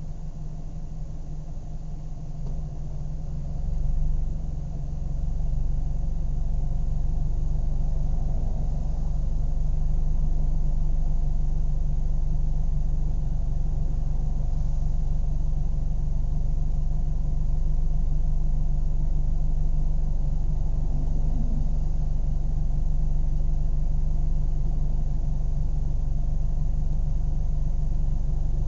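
Car engine running steadily at idle, a low hum that grows louder about four seconds in and then holds even.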